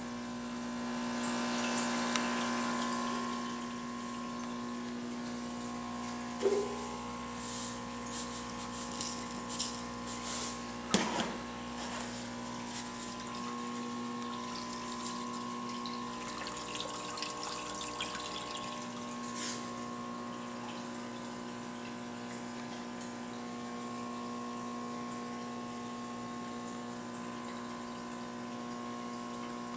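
Aquarium pump humming steadily with bubbling, churning water from the tank's filter return and air bubbles. A scatter of short clicks and splashes comes between about 6 and 12 seconds in, and once more near 19 seconds.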